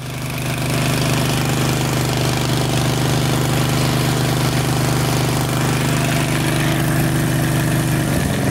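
13.5 hp Briggs and Stratton riding-mower engine running steadily, with its fuel cap loosened so the tank can vent: the test for vapor lock from a clogged cap vent. Its note changes near the end.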